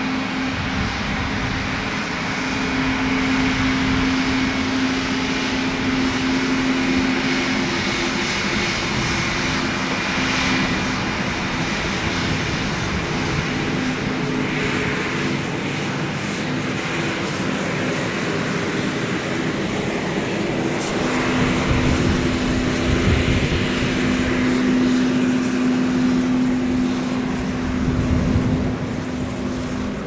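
Embraer E195-E2 jet's Pratt & Whitney PW1900G geared turbofans running at taxi power as the airliner rolls by, a steady engine rush with a held tone running through it.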